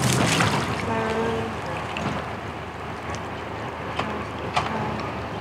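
Water sloshing and splashing around a mooring ball and the bridle lines at a catamaran's bow, with wind on the microphone. A short tone sounds about a second in, and two sharp clicks come near the end.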